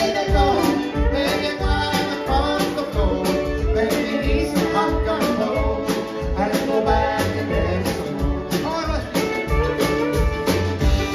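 A live country band plays with singing over fiddles, pedal steel, accordion, acoustic guitar, mandolin, drums and upright bass, with a steady beat.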